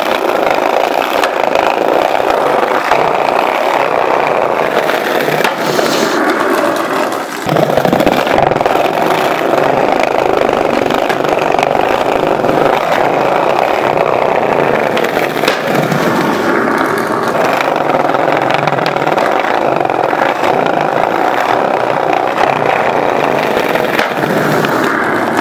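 Skateboard wheels rolling over tiled paving: a steady, loud rolling rumble with occasional faint clicks.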